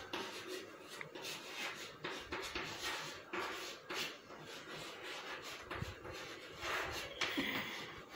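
Chalk writing on a chalkboard: a run of short, irregular scratching strokes.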